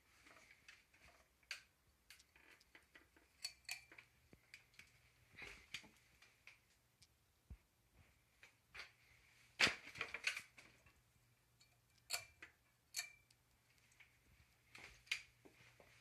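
1987 Kmart Alaska ceiling fan running, with scattered light clicks and clinks throughout, the loudest cluster about ten seconds in. A faint low hum comes in about three and a half seconds in.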